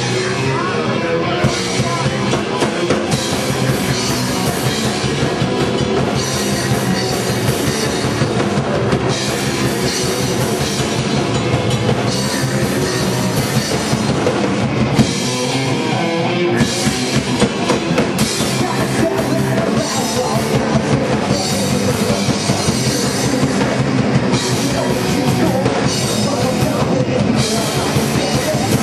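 Punk rock band playing a fast song live: a drum kit driving the beat under distorted electric guitar and bass, loud and continuous.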